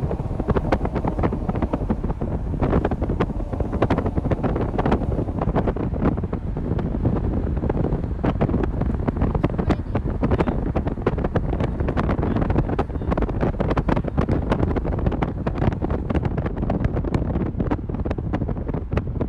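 Wind buffeting the microphone: a loud, steady rumble broken by frequent sharp crackles as the gusts hit it.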